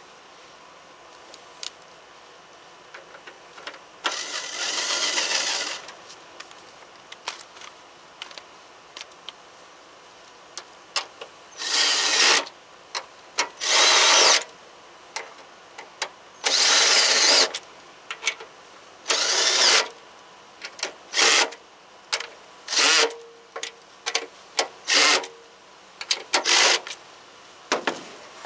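Cordless drill driving in the mounting bolts of a new mower-deck blade spindle. It runs in about nine short bursts: the first, about four seconds in, is the longest, and the later ones are briefer. Light clicks of hardware come between them.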